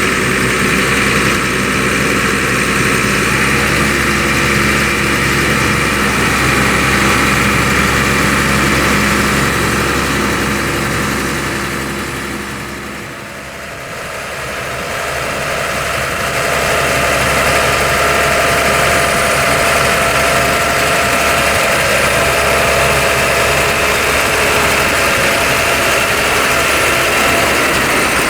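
Fendt tractor engine running steadily under the whir of a trailed potato harvester's machinery, with a thin high whine. The sound dips for a few seconds about halfway through, then comes back.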